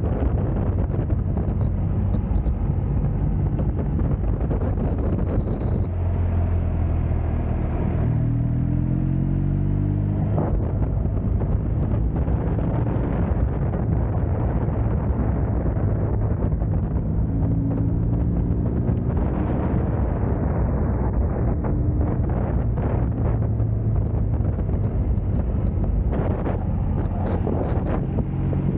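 Motorcycle engine running under way on the road, its note rising twice as the rider accelerates, over a steady rushing noise.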